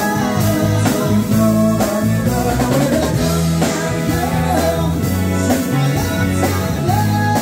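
Live band playing a song: electric guitar, drum kit and a lead singer over a steady beat.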